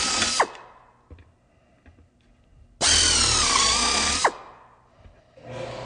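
Power drill with a number 30 bit boring rivet holes through aluminium sheet: a loud high whine that cuts off just after the start, winding down in pitch. A second hole is then drilled for about a second and a half, ending the same way with a falling whine as the trigger is released. Near the end a quieter, steady hum starts.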